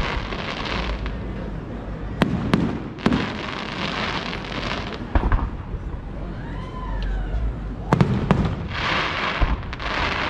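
Fireworks display: aerial shells bursting with sharp bangs every second or few, some followed by a long crackling shower.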